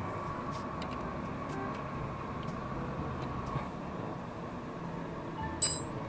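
Hand tools and metal fittings being handled at a motorcycle's rear brake master cylinder while a leaking brake-line fitting is undone: light small clicks over a steady faint hum, then one sharp metallic clink near the end.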